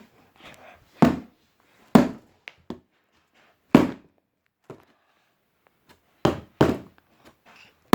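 Hammer blows striking a cardboard packaging box: about six loud, hard thunks at uneven intervals, with a few lighter knocks in between.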